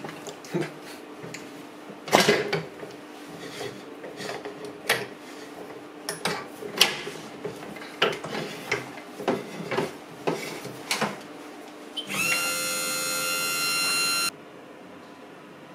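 A specimen mounting press's lid and locking handle are fitted and turned by hand, making a string of irregular clicks and knocks. About twelve seconds in, a steady whine rises briefly at its onset, holds for about two seconds as the press starts its cycle, then cuts off sharply, leaving a faint hum.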